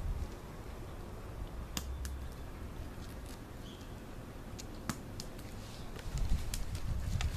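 Scattered light clicks and taps of a dog's claws and a tennis ball on a concrete patio, with a low rumble on the microphone from about six seconds in.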